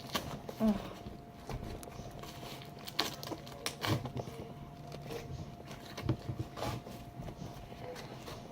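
Scattered handling noises of slime being packed into a plastic container: irregular soft knocks and taps, over a faint steady hum.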